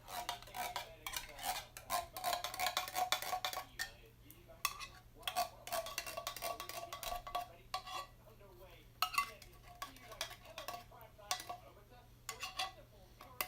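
A metal spoon scraping and clinking against a tin can as condensed cream of chicken soup is spooned into the pot. The strokes come in two long runs with a ringing metal tone, then sparser clicks near the end.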